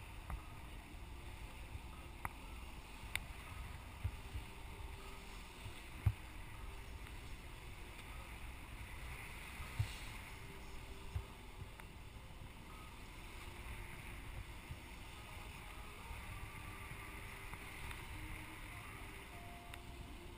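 Water rushing and splashing along a sailboat's hull in choppy seas where two currents meet, with a low wind rumble on the microphone. The splashing swells twice, and a few small knocks come through now and then.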